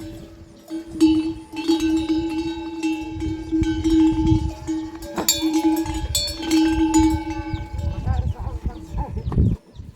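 A metal bell clanging over and over, each strike ringing on in a sustained tone, until it stops near the end.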